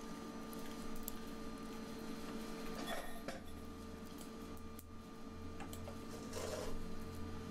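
Steady low electrical hum, with a low drone that grows a little stronger about halfway through and a couple of faint, brief handling noises.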